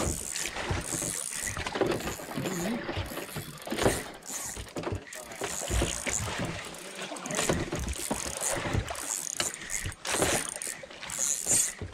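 Seawater slapping and splashing against the hull and outrigger of a small wooden outrigger fishing boat adrift, with irregular knocks from the boat.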